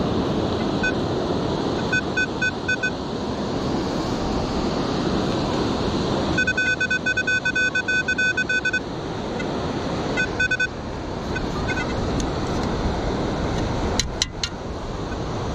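Metal detector giving repeated high beeps over a buried target: short groups of beeps, then a fast unbroken string about six to nine seconds in, with more short groups after. Steady surf and wind noise underneath, and a few sharp clicks near the end.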